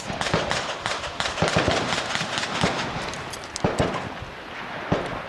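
Gunshots from several firearms on a shooting range, sharp reports at irregular intervals, some close and loud, others fainter and farther off.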